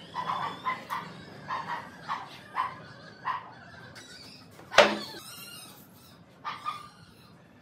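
A dog barking repeatedly, about two barks a second for the first three seconds and once more near the end. A loud single knock a little under five seconds in as a wooden board is set down on the wooden table top.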